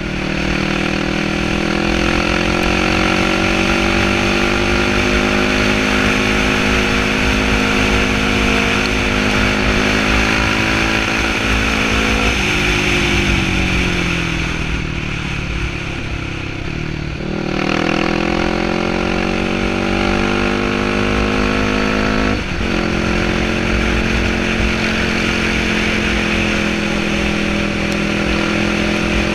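Yamaha sport quad's engine running under way. Its note falls as it slows about twelve seconds in, then climbs again as it accelerates, with a short break at about twenty-two seconds as it shifts up, and then runs steadily.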